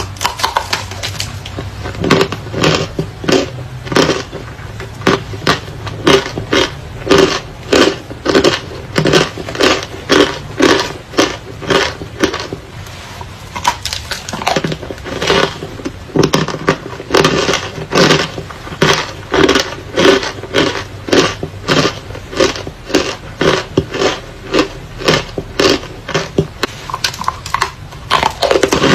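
Close-up crunching of brittle chalk-like pieces: a rapid run of sharp, crisp crunches, about two or three a second, with a couple of short pauses, over a low steady hum.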